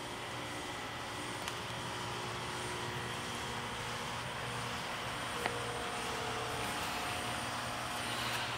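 A steady motor drone with a low hum, and one sharp click about five and a half seconds in.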